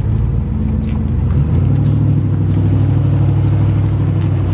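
Engine of an SUV towing a loaded car trailer, running as it pulls away, its low hum stepping up and growing louder about a second and a half in.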